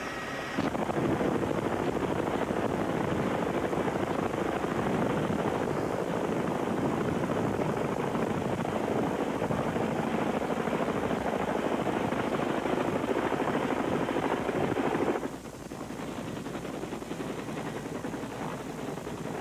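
Helicopter overhead, its rotor and engine running in a loud, steady noise; about fifteen seconds in it cuts off suddenly to a quieter, steady background noise.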